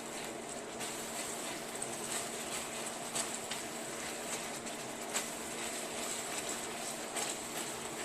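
Buffalo wing sauce of butter, garlic, hot sauce and ketchup cooking in a hot pan: a steady sizzle with many small crackles and pops.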